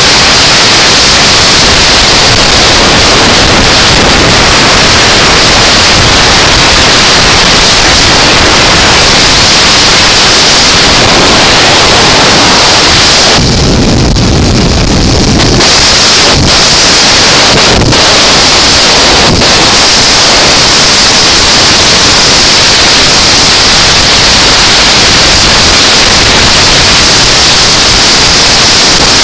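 Loud, steady wind noise on the microphone of a motorcycle riding at highway speed: an even hiss that covers any engine note. About halfway through it drops to a lower rumble for a couple of seconds, followed by a few short clicks.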